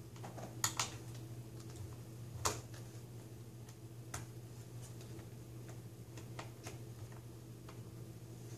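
Scattered faint clicks and taps of a small screwdriver and fingers on the laptop's plastic as the screws holding the screen's lower mounts are undone, the sharpest about two and a half seconds in, over a steady low hum.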